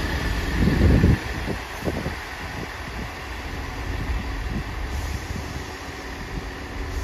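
Diesel multiple unit running at a station platform: a steady low rumble with a faint hum, and a brief louder rush about a second in.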